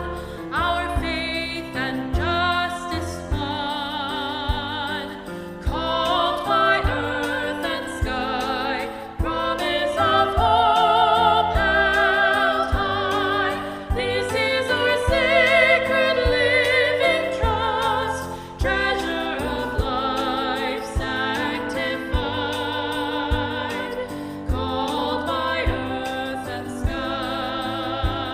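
Music: singing with strong vibrato over instrumental accompaniment.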